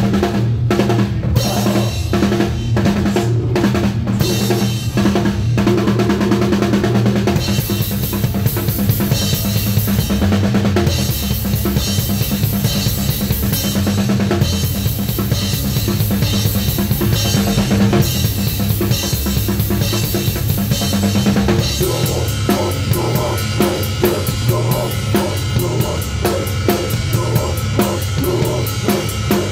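Live drum kit played hard and close up: kick, snare and tom strokes with cymbals, over low sustained notes from the rest of the band. A cymbal wash comes in about seven seconds in, and about twenty-two seconds in the beat changes to a faster, evenly repeating pattern.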